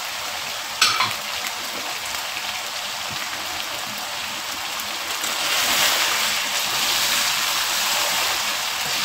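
Mutton mince and potatoes sizzling steadily in oil in a wok, getting louder about five seconds in as a wooden spoon starts stirring. A single sharp click about a second in.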